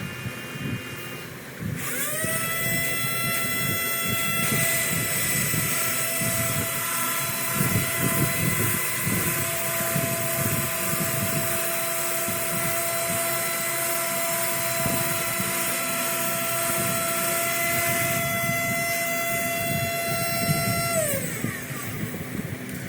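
Small electric vacuum pump motor on a CNC seeding machine running. It spins up with a rising whine about two seconds in, runs steadily with a whine and an airy hiss, then winds down with a falling pitch near the end.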